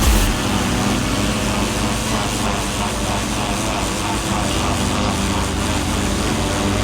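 Engine of a pressure washer running steadily, with a steady hiss over it.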